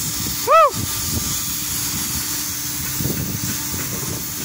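Steady mechanical noise with a faint constant hum and low buffeting rumble. About half a second in, one short, loud whistle-like call rises and falls in pitch.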